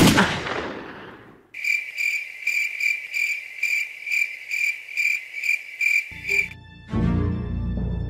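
A gunshot with a long echoing tail, then evenly spaced cricket chirps for about five seconds that stop abruptly. Music comes in near the end.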